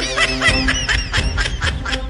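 Background music with an added comic sound effect: a quick run of short, high, squeaky quack-like calls that fades out after about a second and a half, over a steady beat.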